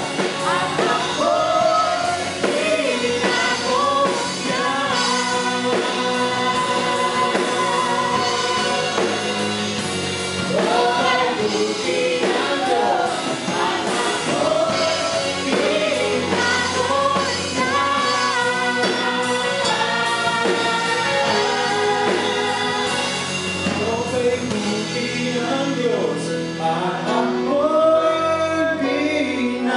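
Live worship band playing a Tagalog praise song, with lead singers on microphones over bass guitar and drums.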